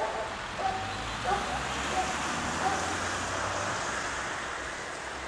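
Puppy whining in a string of short whimpers, a little over half a second apart, growing fainter over the first few seconds, over a low steady rumble.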